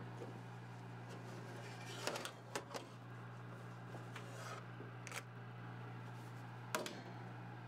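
Faint clinks and scrapes of a metal baking sheet being slid out across a wire oven rack, a few separate knocks spread through it, over a steady low hum.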